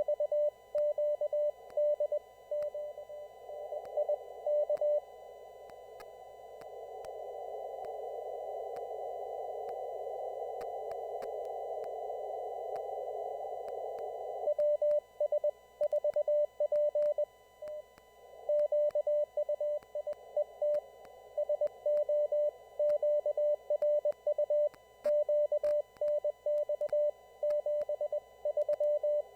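Morse code (CW) from amateur radio stations on a traffic net, heard through a receiver's narrow CW filter: a single mid-pitched tone keyed on and off in dots and dashes over a band of hiss. For about ten seconds in the middle there is no keying, only filtered static that swells. The keying then resumes, fainter at first, and carries on to the end.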